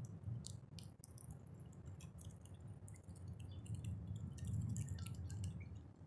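A bird at a feeder pecking and cracking seed: irregular sharp clicks and taps over a steady low rumble.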